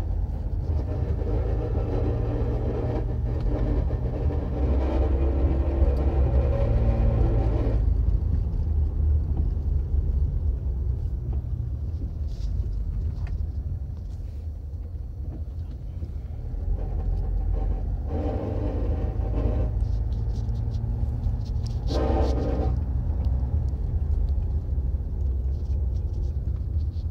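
2013 Land Rover Freelander 2 SD4 on the move, heard from inside the cabin: a steady low rumble with a pitched metallic noise over it for the first eight seconds or so, coming back about seventeen seconds in and briefly again about twenty-two seconds in. The owner hears it under gentle to medium acceleration and when braking, and takes it for a moving mechanical part rather than a split hose; its cause is not found.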